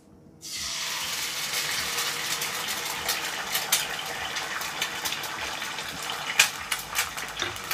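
Three eggs hitting hot oil in a pan: a sudden sizzle starts about half a second in and carries on as a steady hiss of frying, with sharp crackles and pops growing more frequent in the second half.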